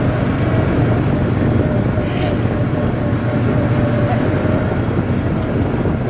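ATV engine running at a steady pace while riding, an even drone with no revving.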